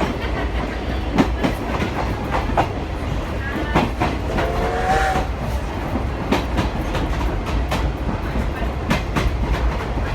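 Inside a vintage passenger coach of a steam-hauled train on the move: a steady low rumble with irregular clicks and clacks from the wheels and the coach body. A brief higher tone sounds about four seconds in.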